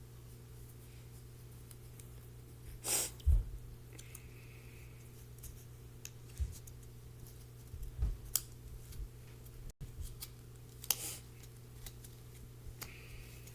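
Crafting handling noises while a popsicle-stick instrument is assembled: light rustles and clicks of paper and tape, with two short, louder rasps about three seconds in and again near eleven seconds. A steady low hum lies underneath.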